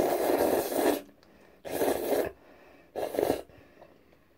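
Jjajang ramen noodles being slurped into the mouth in three loud bursts: the first about a second long, then two shorter slurps.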